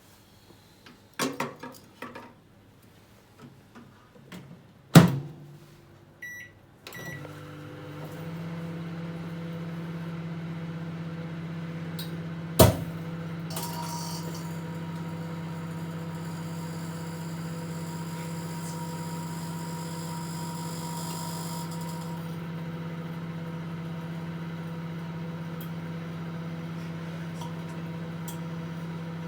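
Microwave oven being loaded and started: a few clicks and knocks, the door shutting with a loud knock, short keypad beeps, then the oven running with a steady low hum. A sharp click comes a few seconds after it starts, and a high hissing buzz joins for about eight seconds before dropping away.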